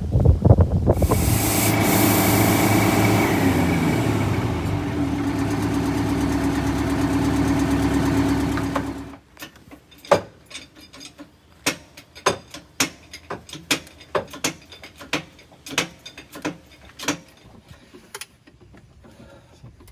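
A Detroit Diesel 8V71 two-stroke V8 bus engine runs loud, its pitch falling as the revs drop back toward idle, then stops abruptly about nine seconds in. After that come scattered metallic clicks and knocks from hand tools being worked at a rear wheel hub.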